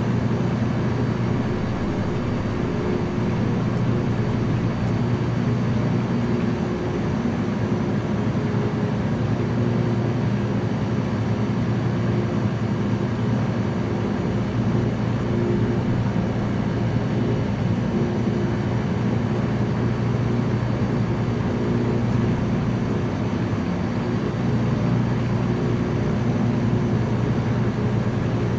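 Small light aircraft's engine and propeller droning steadily in flight, heard from inside the cabin.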